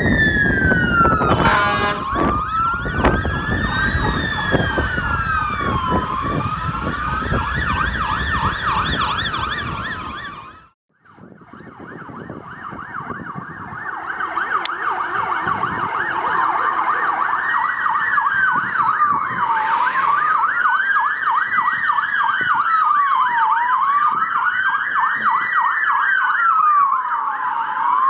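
Several fire-truck sirens wailing out of step with each other, slow rising and falling sweeps with faster yelping sweeps mixed in, over engine and road noise. The sound drops out briefly about eleven seconds in, then the wailing picks up again.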